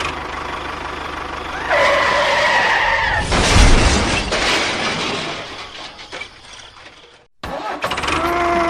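Vehicle noise with a high squeal lasting about a second and a half, then a sudden loud crash that fades away over a few seconds and cuts off near the end.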